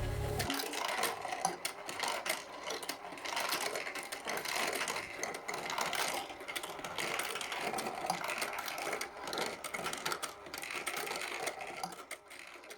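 ROKR Future City wooden marble run running: its motor-driven mechanism works with a busy, irregular clatter of many small clicks as the balls run along the tracks. A few notes of background music end about half a second in.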